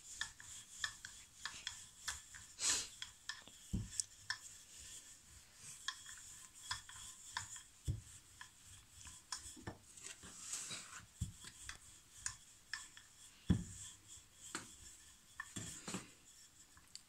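Wooden rolling pin rolling out a potato-stuffed paratha on a floured wooden board: faint rubbing with irregular light clicks, and a few louder thumps as the pin knocks the board.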